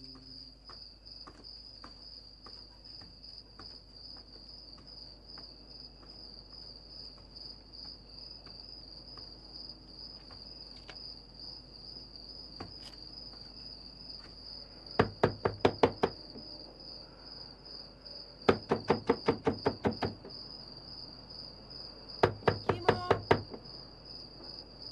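Crickets chirp steadily throughout, with faint footsteps in the first half. From about fifteen seconds in come three bursts of rapid knocking on a wooden gate, each of six to eight knocks, a couple of seconds apart.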